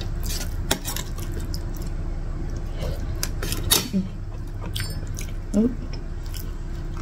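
A metal spoon clinking and scraping against a ceramic plate of fried noodles, then hands handling a crispy fried prawn, making scattered small clicks and rustles. Twice there is a brief murmur of a woman's voice.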